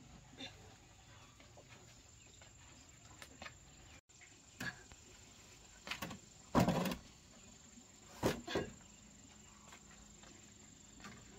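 A few separate knocks and thuds over a faint background, the loudest about two-thirds of the way through.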